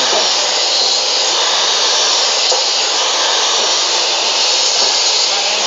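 Maktec 2000-watt electric cut-off saw fitted with a 7-inch, 100-tooth aluminium-cutting blade, running loud and steady as it cuts through cattle bone.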